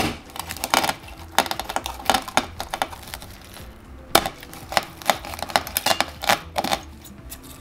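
Kitchen knife chopping at a red sea urchin on a wooden cutting board: many sharp, irregular knocks and cracks as the blade hits the hard, spiny shell. The shell proves harder to split than expected.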